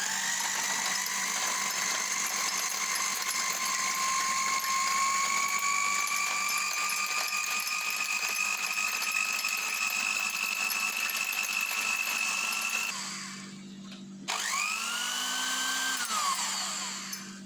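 Electric hand mixer with a single beater whipping instant coffee, sugar and water: the motor whine holds for about 13 seconds, slowly rising in pitch, then stops. About a second later it runs again briefly, spinning up and winding down.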